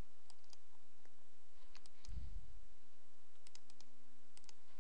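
Scattered light clicks of a computer mouse being worked, over a steady low hum, with one dull low thump about two seconds in.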